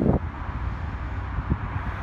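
Wind buffeting the microphone over a steady low rumble of road traffic, with one short thump about one and a half seconds in.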